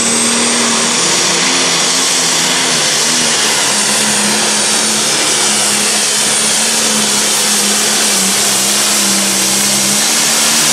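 John Deere Pro Stock pulling tractor's turbocharged diesel engine running flat out under heavy load as it drags the weight sled, a loud, steady drone with a faint high whine over it in the first couple of seconds.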